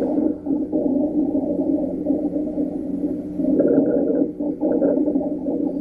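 Rhonchi heard on chest auscultation: low-pitched, continuous rumbling breath sounds with a steady tone near 200 Hz. They come from fluid films rupturing and airway walls vibrating, and they may clear with a cough.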